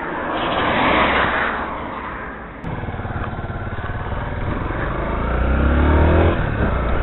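A rush of noise for the first couple of seconds, then a Yamaha Crosser 150's single-cylinder engine pulling away. Its pitch rises as it accelerates and drops once near the end.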